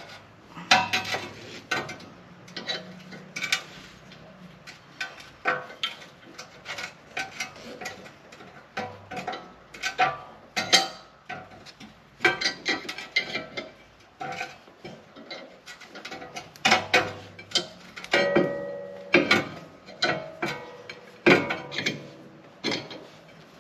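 C-clamp being screwed down to compress a brake caliper's single piston: irregular metallic clicks and clanks as the clamp is turned, with a ringing metal clank about three-quarters of the way through.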